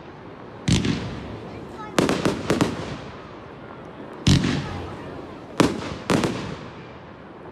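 Aerial firework shells bursting: about eight sharp bangs. There is a single one early, a quick run of four about two seconds in, then three more spaced a second or so apart, each trailing off in a fading echo.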